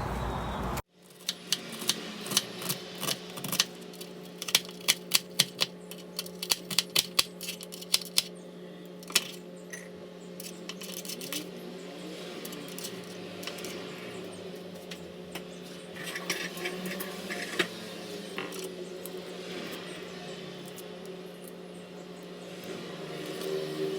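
Kitchen utensils at work: a quick run of sharp knocks and clinks for several seconds, then scattered ones, over a steady hum.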